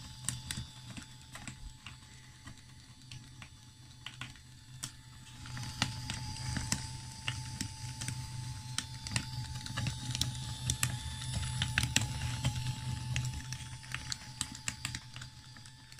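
Small electric gearmotor driving the roller-chain track of a 3D-printed RC excavator undercarriage around its sprocket and rollers: a steady motor hum with a thin whine and rapid, irregular clicking of chain links. It gets louder a little before halfway through, then eases off near the end.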